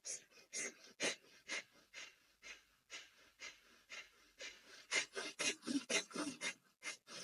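A person breathing rhythmically through the left nostril with the right one closed, the first stage of Nadi Shodhana alternate-nostril breathing. The short breaths come about two a second, then grow faster and louder about four and a half seconds in.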